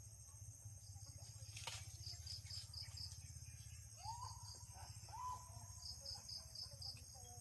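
Quiet jungle ambience: insects chirping in repeated runs of fast pulses over a steady high insect drone. Two short rising calls come about four and five seconds in, with a single click a little before the two-second mark.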